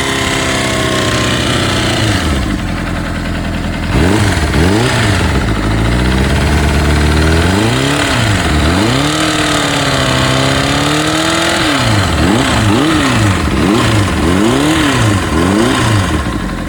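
Honda CBR600RR (PC37) inline-four engine revved up once, held, then blipped repeatedly, the pitch rising and falling over and over. It carries a strange noise that its owner cannot trace, though the cam chain is new, oil pressure is good and the pistons and rings are new.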